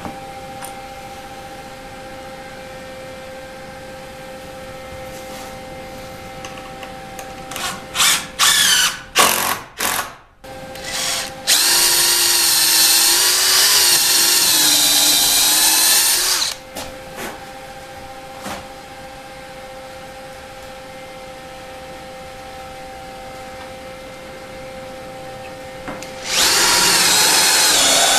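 Cordless DeWalt drill-driver driving wood screws into a hardwood strip. A few short trigger blips come about eight to ten seconds in, then a steady run of about five seconds whose pitch sags a little as the screw pulls down. Another run starts about two seconds before the end and carries on.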